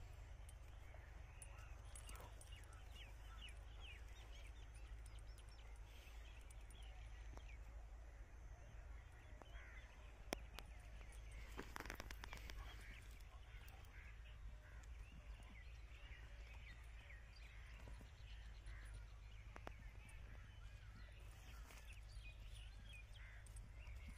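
Quiet outdoor ambience: small birds chirp on and off in the background over a low steady rumble, with a brief louder burst of noise about halfway through.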